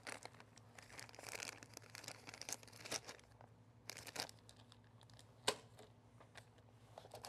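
Quiet crinkling and tearing of plastic packaging as board-game components are unwrapped, with scattered sharp clicks and taps, the sharpest about five and a half seconds in.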